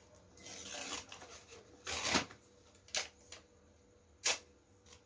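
Handling noises: a soft rustle, a louder scraping rustle about two seconds in, then a few sharp clicks, the loudest near the end.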